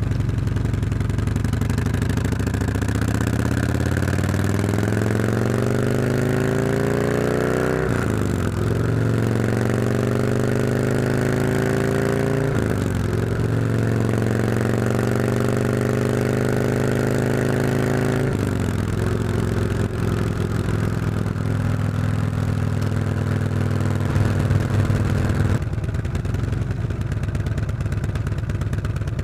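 Harley-Davidson Road King's V-twin exhaust through stock mufflers with stainless 2-1-2 head pipes, heard up close, accelerating with the pitch climbing and dropping back three times as it shifts up through the gears, then holding a steady cruise before the throttle eases off near the end.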